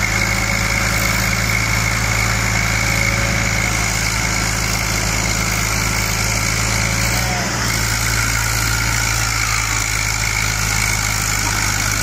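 Diesel tractor engines, an Eicher 380 and a Deutz-Fahr 45, running hard under load as they pull against each other in a tug-of-war: a steady, continuous drone.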